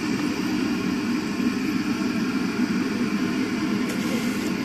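Steady roar of an LPG gas burner firing under a large cooking pot of oil, an even rushing noise that holds at one level throughout.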